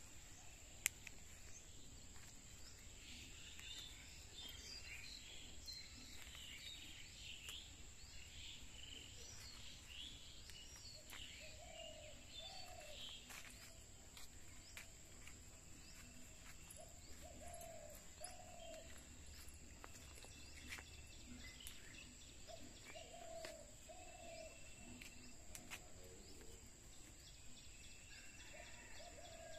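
Faint outdoor birdsong: quick chirps from small birds, busiest in the first half, and a lower two-part call repeated every five or six seconds in the second half, over a steady high hiss. There is a single sharp click about a second in.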